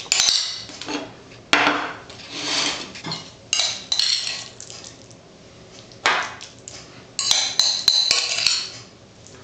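Metal spoon scraping and clinking against a glass mixing bowl while scooping minced raw steak tartare out onto a plate: a run of irregular scrapes and clinks with short pauses between them.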